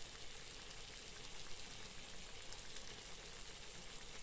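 Chicken pieces in a spicy sauce simmering faintly in a frying pan, a soft, steady sizzle and bubbling.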